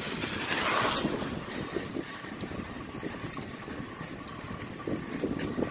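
Steady rumble and hiss of a slow-moving motor vehicle, with a louder rush of noise around the first second.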